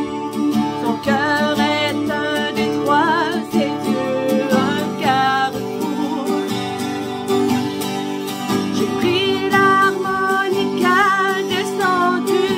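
A woman singing in French with a clear vibrato, accompanying herself on an acoustic guitar with steady strumming.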